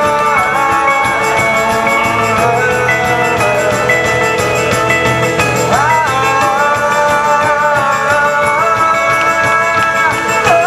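Live rock band playing on stage: electric guitars, a small acoustic guitar, keyboards and drums, loud and steady, with long held notes that slide in pitch about six seconds in.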